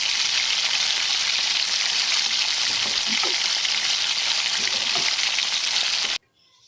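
Coated chicken pieces frying in hot oil, a steady loud sizzle, with a few faint taps about three to five seconds in. The sizzle cuts off suddenly near the end.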